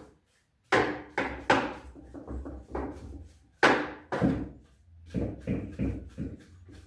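A series of irregular knocks and thuds, about a dozen, each sudden and quickly fading, over a faint low hum.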